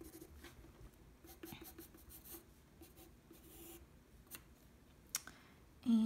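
Derwent Graphic graphite pencil sketching lightly on drawing paper: faint, irregular scratching strokes, with a couple of sharper ticks in the second half.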